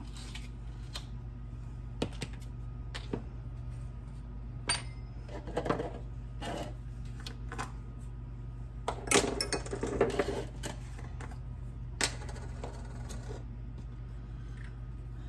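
Seasoning containers being opened and handled: scattered clicks and short rattles of caps and plastic spice jars, the busiest cluster about two-thirds of the way in, over a low steady hum.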